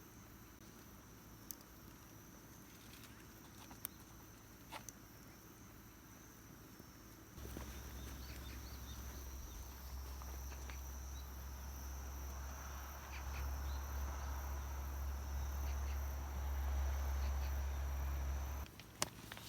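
Insects trilling steadily in the background with a few faint clicks. About seven seconds in, a low rumble starts abruptly, swells and cuts off shortly before the end.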